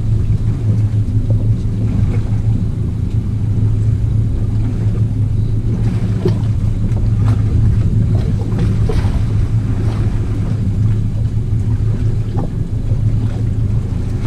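Motorboat engine running steadily with a constant low hum as the boat is manoeuvred astern to set up on the anchor. A few faint knocks sound over it.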